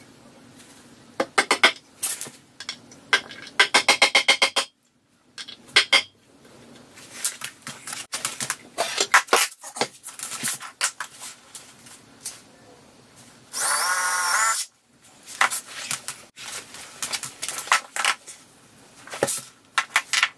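Claw hammer tapping on a reclaimed cedar shelf, with a quick run of taps, then scattered knocks and metal clinks. About two-thirds of the way through, a cordless drill runs for about a second.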